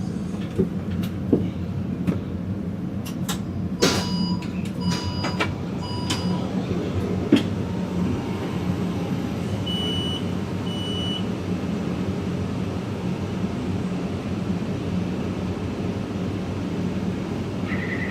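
Taipei Metro train running on the Zhonghe–Xinlu line: a steady low rumble, with several sharp clicks and knocks in the first half and short electronic beeps, a run of four about four to six seconds in and two more about ten seconds in.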